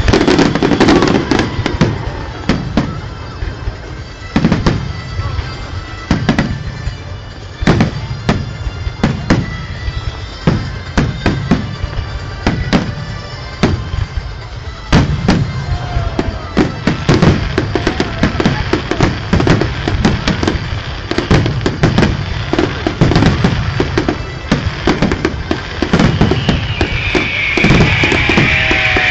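Fireworks display: a long run of firework bangs and crackles, coming closer together in the second half, over music playing.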